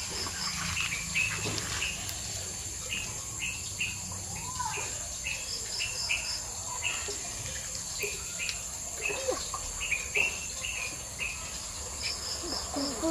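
Outdoor insect chorus, a steady high-pitched drone, with a bird calling short repeated chirps throughout and, three times, a quick run of four higher peeps.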